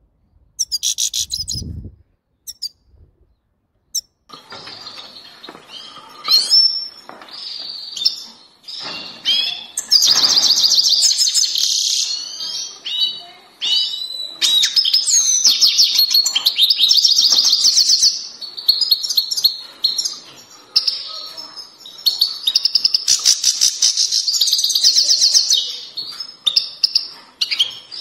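Grey-headed goldfinch singing: a few short chirps, then from about four seconds in a fast, almost unbroken run of high twittering and trilled phrases with quick pitch sweeps.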